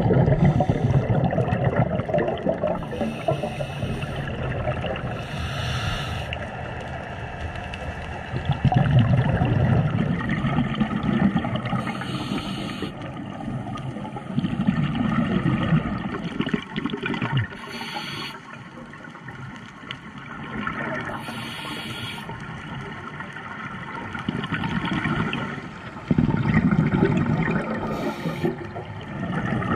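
A scuba diver breathing on a regulator underwater: low bubbling rumbles of exhaled air every few seconds, with short hisses between them.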